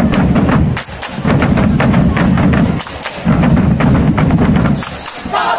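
A student cheer (yel-yel) troupe's fast rhythmic percussion, in stretches of about two seconds with short breaks between. Near the end the group breaks into a loud shout together.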